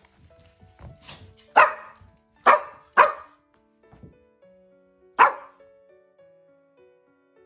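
A small dog barking sharply four times, three in quick succession and one more about two seconds later, with a softer yap just before the first. Soft piano background music plays under the barks.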